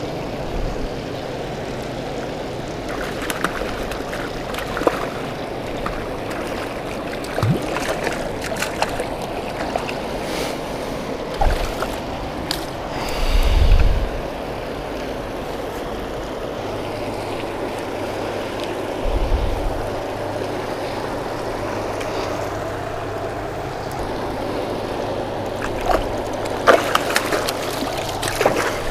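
Steady rush of water pouring through a spillway, with scattered clicks and knocks and a couple of low thumps.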